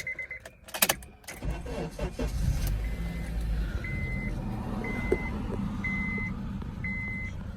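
A 2009 Honda CR-V's engine starting: a few clicks, then it cranks and catches about a second and a half in and settles into a steady idle. A dashboard warning chime beeps about once a second over the running engine.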